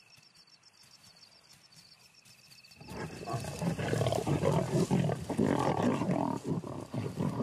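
Night insects chirping faintly, then about three seconds in a pride of lions breaks into loud, harsh snarling and growling as they squabble over a fresh puku kill.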